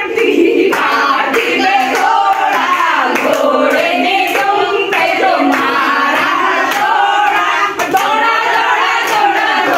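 A group of women singing a song together, keeping time with steady rhythmic hand clapping.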